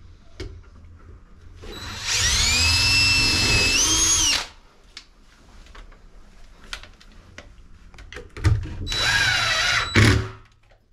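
Power drill driving screws in two runs, the first about two and a half seconds long and the second about a second and a half, each a motor whine that rises in pitch, holds, then cuts off sharply. Light clicks and taps between the runs.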